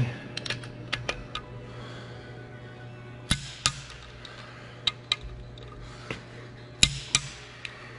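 Click-type torque wrench on Detroit Diesel Series 60 cylinder head bolts: sharp metallic clicks as each bolt reaches its set torque, with lighter ratchet clicks between. The strongest pairs of clicks come a little past three seconds and again near seven seconds. This is the final check of head-bolt torque.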